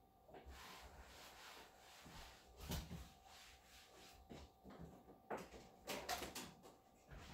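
Cleaning cloth wiping a surface in faint, repeated rubbing strokes, with a few louder knocks and bumps, one about a third of the way in and a cluster near the end.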